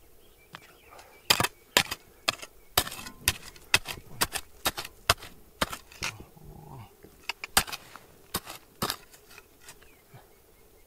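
An irregular series of sharp knocks and clacks, about two a second for roughly eight seconds, the loudest a little over a second in and again about five seconds in.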